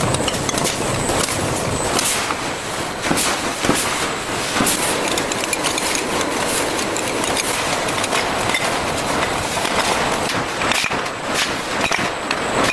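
Factory processing machinery running with a steady clatter of many small clicks and knocks.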